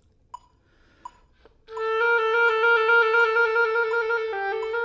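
Metronome clicking eighth notes at 84 a minute, then an oboe entering about one and a half seconds in with a slow half-note trill that ends in a Nachschlag, two quick small notes, and resolves onto a held note near the end.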